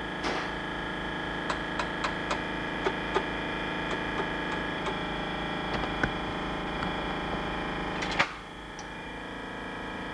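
Tram running along its track, heard from the driver's cab: a steady hum with several steady tones, broken by light clicks and knocks from the wheels on the rails. About eight seconds in there is a louder knock, and the running noise then drops and stays quieter.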